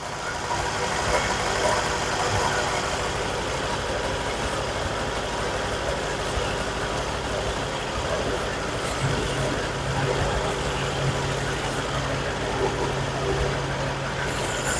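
BMW 750i V8 engine idling steadily. A low hum grows louder about nine seconds in and holds, with the transmission being run through the gears to circulate freshly added fluid.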